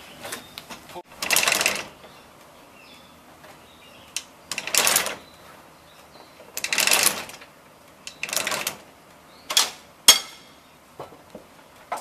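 Metal rattling of a 1920s sawmill's log carriage as its levers and setworks are worked by hand, in about six short bursts that come closer together near the end.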